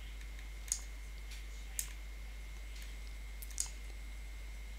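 Computer mouse button clicks, a few short sharp ones spaced irregularly, over a steady low electrical hum.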